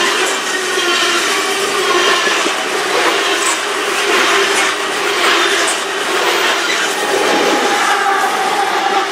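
CP coal train's steel coal cars rolling past at close range: a steady rumble and rattle of wheels on rail, with thin wheel squeals coming and going.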